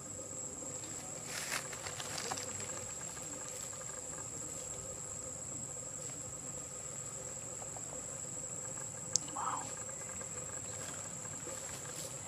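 Steady high-pitched insect drone. A few soft rustles early on, a sharp click about nine seconds in, and a short faint call just after it.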